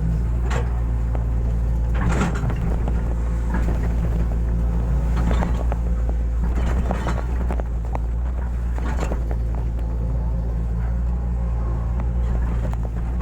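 Hitachi excavator's diesel engine running steadily at work, with several scattered knocks and clanks over the drone.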